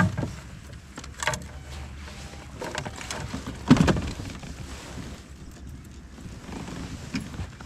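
Handling knocks and clunks in a fishing kayak over a low steady rumble, a few separate knocks with the loudest about three and a half seconds in.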